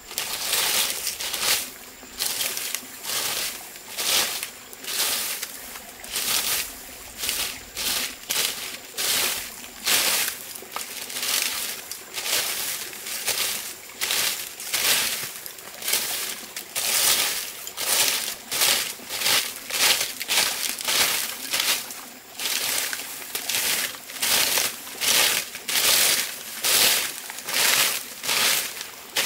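A steady, rhythmic run of dry rustling, crinkling strokes, about one and a half a second.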